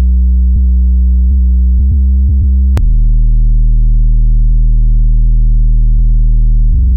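Electronic background music: sustained synthesizer bass notes that change about every four seconds, with a light beat.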